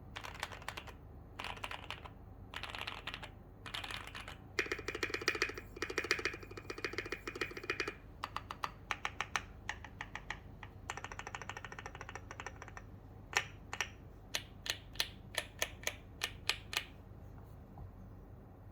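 Typing on a Keychron Q2 mechanical keyboard with lubed and filmed C3 Tangerine linear switches and a PE-foam and tape mod. Short bursts of keystrokes give way to a fast run of typing in the middle, then single key presses spaced a little under half a second apart near the end.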